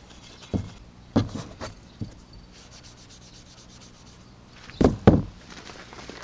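A Scotch-Brite pad scuffing primed metal hand-plane parts to matte the primer before painting. It comes as a few short scrapes and knocks, one group in the first two seconds and a louder pair about five seconds in.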